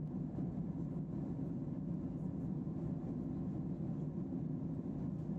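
Steady low drone of an airliner in flight, heard from inside the passenger cabin: engine and airflow noise with no changes.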